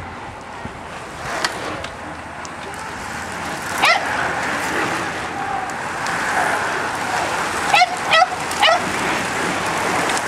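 A dog barking in short sharp yaps, once about four seconds in and three times in quick succession near the end, over the rushing whir of a bunch of racing bicycles passing close by.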